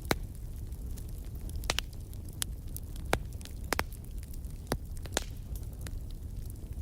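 Wood fire burning in a fireplace: a low, steady rumble of flame with sharp crackles and pops at irregular intervals, a dozen or so, the loudest just after the start and about three seconds in.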